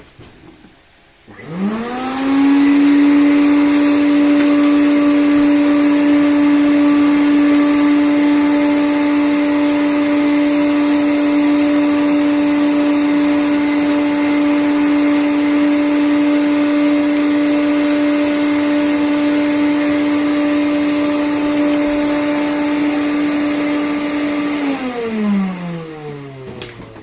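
Numatic WVD900 industrial wet and dry vacuum cleaner switched on, its motor spinning up with a rising whine about a second in, then running steadily at one pitch. Near the end it is switched off and winds down with a falling whine.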